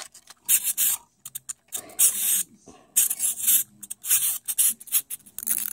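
Small plastic wind-up hamster-wheel toy being turned and worked in the fingers: a string of short, irregular scratchy rasps of plastic rubbing against plastic, the wheel not spinning on its own.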